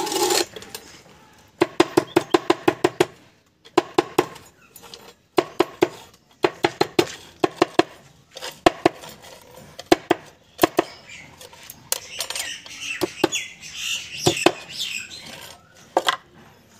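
Small hammer tapping aluminium wire against a heavy metal block to round it into a ring: quick runs of light metallic taps, about six a second, broken by short pauses.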